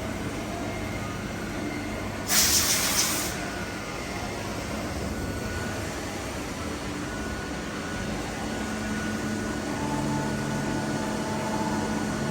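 Haas TM-2P CNC milling machine running, a steady machine hum with faint whines. About two seconds in comes a hiss lasting about a second, and from about eight seconds in a low hum grows stronger.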